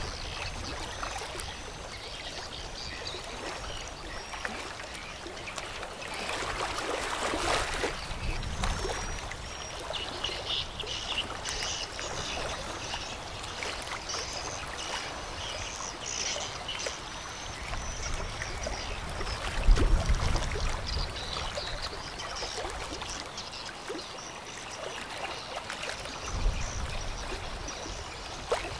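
Riverbank ambience: a steady rush of water, with high-pitched chirping from about ten seconds in. Low buffeting rumbles come and go, the loudest about twenty seconds in.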